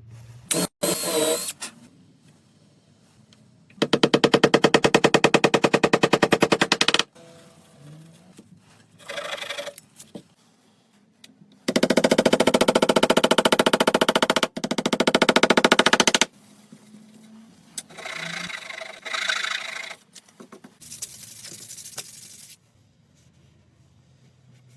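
A power drill boring into wood, running in two long runs of several seconds each, with shorter bursts between and after. This is drilling the hole for the dowel that reinforces the bridle joint.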